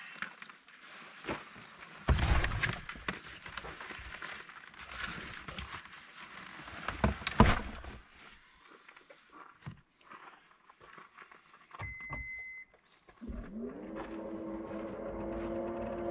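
Gear being loaded into an SUV's cargo area: rustling and scattered knocks and thumps as a backpack and rope are set down, the loudest a sharp knock about seven seconds in. A short beep sounds around twelve seconds in, and about a second later a steady, gong-like music drone begins.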